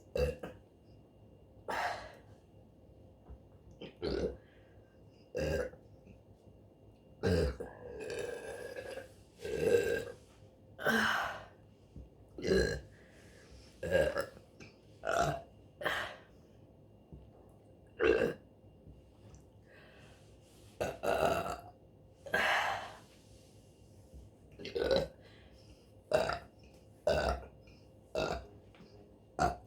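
A woman burping over and over: about twenty belches one after another, roughly every second or two. Most are short and a few are drawn out.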